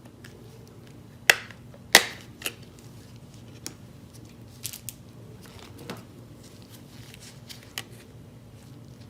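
Handling noise: sharp clicks and taps, two loud ones about a second and two seconds in, then fainter scattered ones, over a low steady hum.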